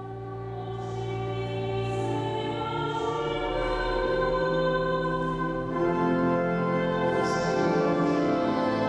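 Music: singing voices over sustained, held chords, growing louder over the first few seconds.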